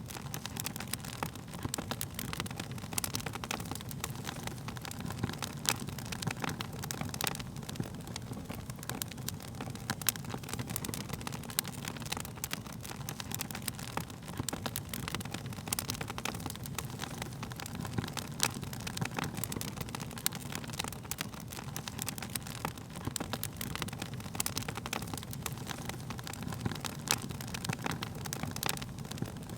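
Burning wood crackling, with frequent irregular sharp pops and snaps over a steady low rumble.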